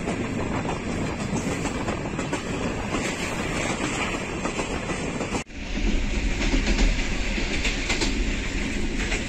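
Passenger train running at speed, heard from the coach window: a steady rush of wheel, track and wind noise. About five and a half seconds in the sound cuts out for an instant and comes back with a heavier low rumble.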